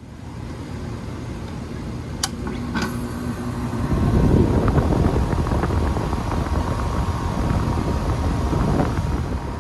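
2015 Amana Distinctions 2-ton, 16 SEER central air conditioner with a scroll compressor, starting up: a steady hum with two sharp clicks about two and three seconds in, then from about four seconds a louder, rushing running sound as the unit comes up to speed.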